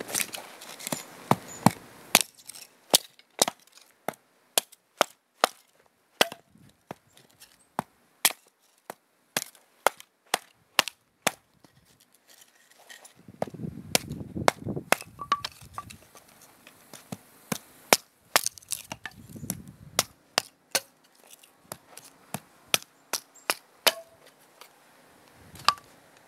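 A long series of sharp cracks or snaps, roughly one or two a second at irregular spacing, with brief low rumbles about halfway through.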